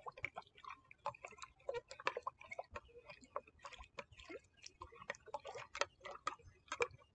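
A spoon stirring Epsom salts into warm water in a Pyrex glass measuring cup, ticking and clinking against the glass irregularly, a few times a second, while the salt dissolves.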